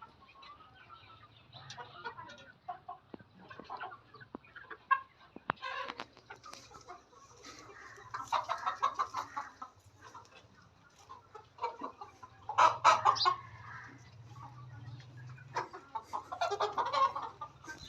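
A flock of Golden Misri hens clucking, with short calls throughout and louder bursts of clucking about eight, twelve and sixteen seconds in.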